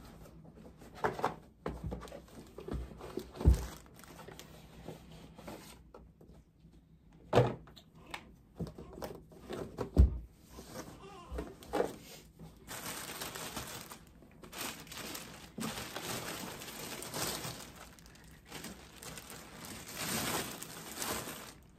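Hospital supplies and packaging being handled and packed: scattered thunks and knocks with plastic crinkling. A steady hiss joins about halfway through and runs until near the end.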